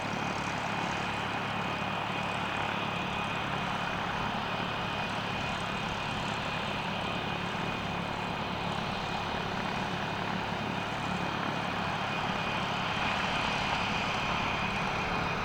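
Cessna Citation CJ3+'s turbofan engines running at taxi power: a steady rushing hiss with a thin high whine, growing slightly louder near the end.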